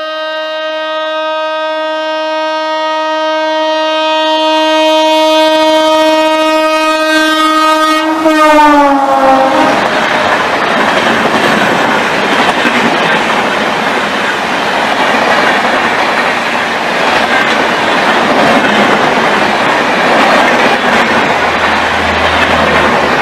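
Express train passing at high speed. Its locomotive sounds one long horn blast that grows louder, and the pitch drops as the locomotive passes, about eight seconds in. Then comes the steady rush of the coaches going by.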